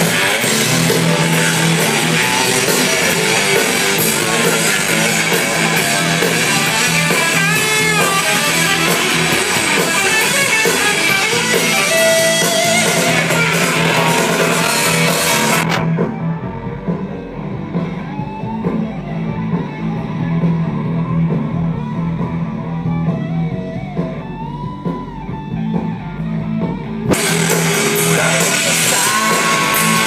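A live rock band with electric guitar and drums playing through a stadium PA, heard loud from within the crowd. For about eleven seconds midway the sound turns duller and a little quieter before returning to full brightness.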